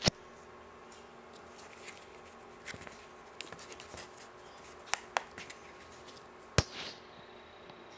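Sharp clicks and lighter taps of square plastic tiles being snapped onto and pulled off a mounting plate by hand. There is a loud click right at the start, two close together about five seconds in and another a second and a half later, over a faint steady hum.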